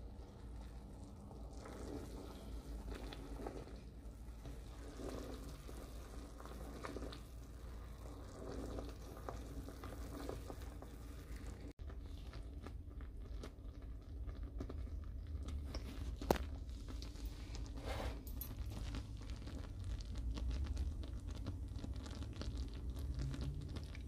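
Apple jelly boiling hard in a small saucepan: sugary bubbling and crackling over a steady low hum, with one sharp click about sixteen seconds in. The syrup is being reduced toward the gel stage.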